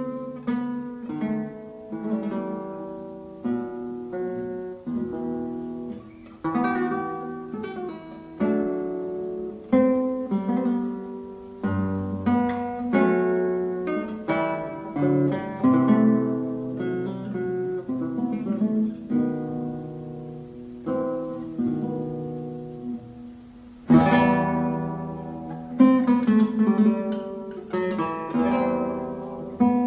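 Acoustic guitar music: plucked single notes and chords ringing and fading one after another, with a louder strummed chord a little past the two-thirds mark.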